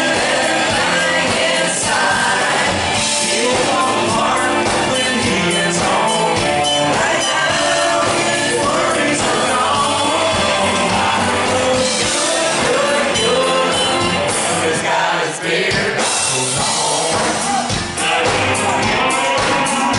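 Live country band playing with a male lead singer: electric guitars, bass and drums under the vocal.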